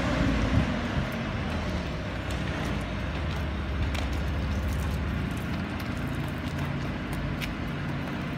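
Steady low mechanical drone with an even hiss, from machinery running during a compressor wash of a PT6A-60A turboprop engine, with a few faint clicks over it.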